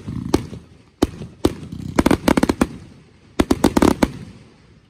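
Aerial firework shells bursting in a display finale: a few single sharp bangs, then two quick volleys of reports about two and three and a half seconds in, each report trailing off in echo before it fades out at the end.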